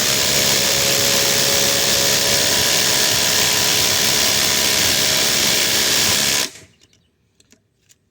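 Makita XDT14 and Flex FX1371A cordless impact drivers hammering 5-inch ledger screws into wood together, a loud steady racket that stops suddenly about six and a half seconds in as the screws seat. A few faint clicks follow.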